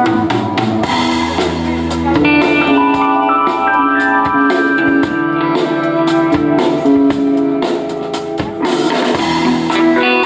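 A live band playing: drum kit keeping a steady beat under guitar, with held notes over it.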